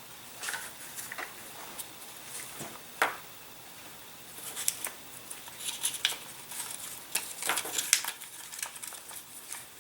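Hands handling tools and small parts on a workbench: scattered light clicks, taps and rustling, with one sharper click about three seconds in and busier clicking and rustling in the second half.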